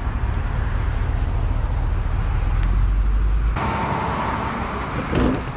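A motor vehicle's engine running with a low rumble. About three and a half seconds in, the rumble cuts off abruptly and gives way to a brighter, hissier roadside noise, with a short sound near the end.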